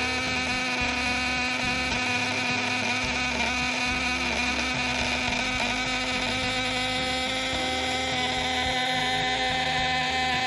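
Homemade contact-breaker (points) shocker circuit running: the points vibrate rapidly, interrupting battery current through an ignition coil, and give a steady, loud electric buzz with many overtones.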